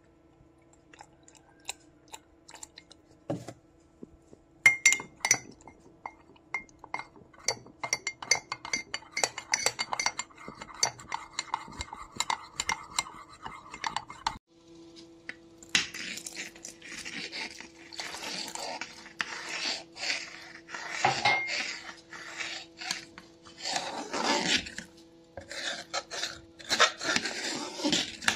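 A metal spoon stirs cornflour and milk in a cup, clinking quickly and repeatedly against its sides. After a break it scrapes and stirs a thick milk mixture in a metal pot, in long rough strokes. A faint steady hum runs underneath.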